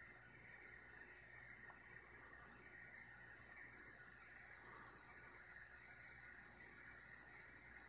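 Near silence: a faint steady hiss with a low hum underneath, unchanging throughout.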